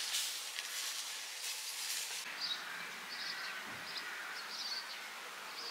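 Quiet outdoor yard ambience: a soft high rustling hiss for about two seconds, then faint short bird chirps over a low background.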